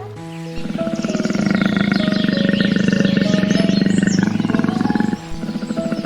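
A large wild animal growling: a long, low, rough rumble that stops briefly about five seconds in and then starts again. Steady background music plays under it, with faint bird chirps.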